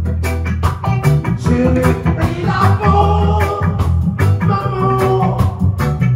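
Live band playing: drum kit keeping a steady beat under a prominent bass line, with electric guitars, keyboard and singing.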